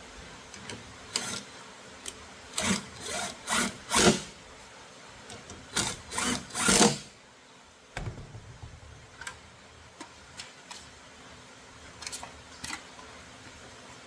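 Plastic steering-wheel parts and wiring being handled and fitted by hand: a series of short scraping, rubbing strokes, then a sharp click about eight seconds in and a few lighter clicks and taps.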